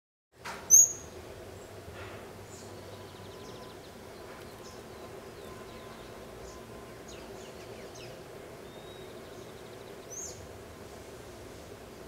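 Birds calling: a loud, short, high-pitched call about a second in and another near ten seconds, with fainter scattered chirps and a couple of quick trills between them. A steady low hum of background noise runs underneath.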